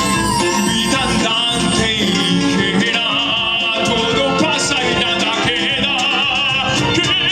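Latin American folk-fusion band playing live: a full ensemble with strings and bass under a high, wavering vibrato melody that comes in about three seconds in.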